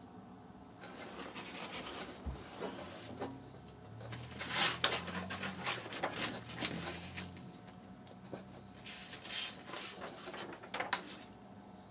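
Paper rustling and crinkling in irregular bursts, with a few sharper crackles, as a plant wrapped in kitchen paper and the packing papers are handled.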